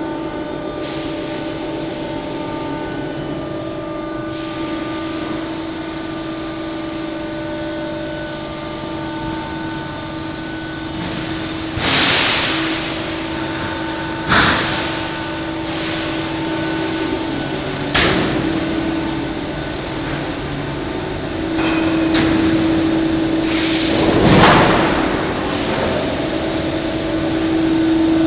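Thick-steel coil cut-to-length line running: a steady machine hum with a constant low tone and a few fainter ones, broken in the second half by several loud short bursts of noise and one sharp bang.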